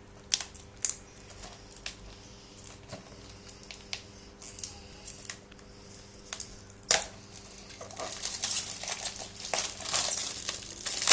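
A DVD case and its plastic packaging being handled: scattered clicks and taps, then busier crinkling and clicking from about eight seconds in.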